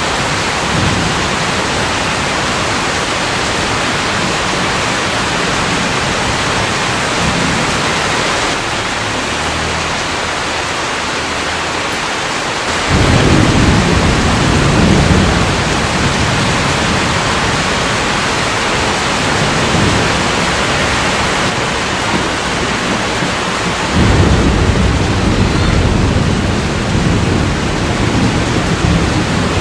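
Steady heavy rain with deep rumbles of thunder rolling in, one starting suddenly about 13 seconds in and another about 24 seconds in.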